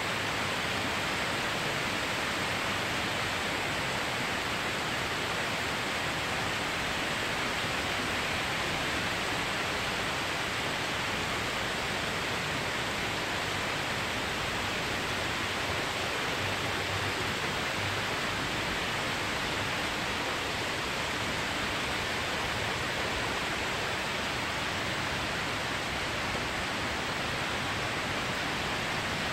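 Storm rain pouring down steadily, an even hiss that does not change.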